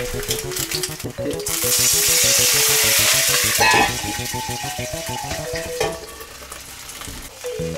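An egg frying in oil in a wok, sizzling loudly. About three and a half seconds in, a metal lid is set on the pan with a clank, and the sizzle turns muffled and much quieter. Background music with a melody and a beat plays throughout.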